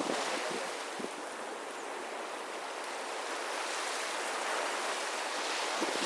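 Sea surf washing on a beach: an even, steady hiss of water that swells a little near the end.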